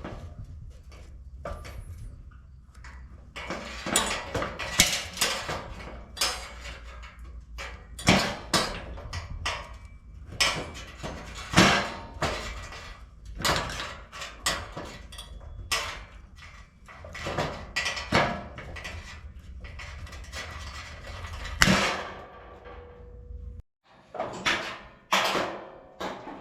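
Construction work on a wood-framed grill surround: irregular knocks, clatter and scrapes, some sharp and loud, over a steady low hum that stops suddenly near the end.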